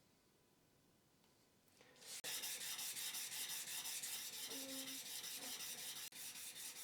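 Metal workpiece being rubbed back and forth on very fine 3000-grit abrasive paper on a flat marble slab. Rapid, even sanding strokes start about two seconds in and ease slightly near the end.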